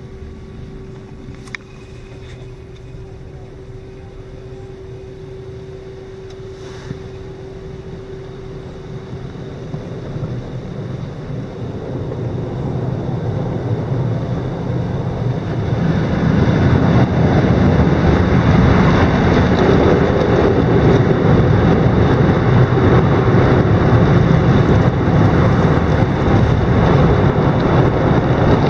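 Automatic tunnel car wash heard from inside the car. A moderate wash noise with a steady machine hum fades out about a third of the way through. Then the sound swells over several seconds into a loud, steady rush of water spray and rotating cloth brushes scrubbing the car's body and windshield.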